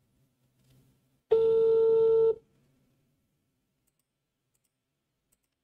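Telephone ringback tone heard over a speakerphone: one steady, low single-pitch tone lasting about a second, starting just over a second in. The called number is ringing and nobody answers.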